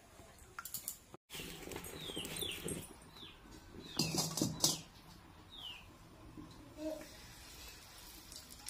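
A few knife clicks as tomato is sliced over a steel bowl, then after a break an aluminium kadai is handled and set down over a wood-fire stove, clanking and scraping about four seconds in. Short high falling chirps sound here and there.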